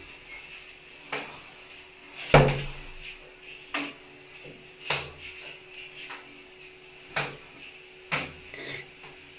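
Scattered sharp knocks and clicks, about seven of them, the loudest about two and a half seconds in with a dull thud, over a faint steady hum.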